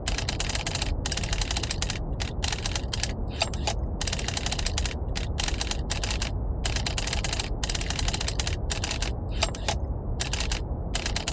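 Mechanical typewriter keys clacking rapidly in runs with short pauses between them, over a steady low rumble of brown noise.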